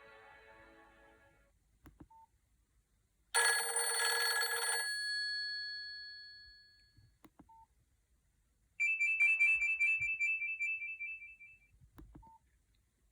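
Nokia 5130 XpressMusic phone playing short previews of its preloaded ringtones one after another. The end of one tone fades out, a bright chime starts about three seconds in and dies away, and a fast trilling ring sounds from about nine to twelve seconds in. Faint clicks and short beeps come in the gaps between them.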